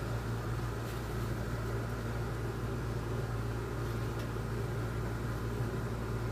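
Steady low machine hum with an even hiss under it, unchanging throughout, with a couple of faint light clicks.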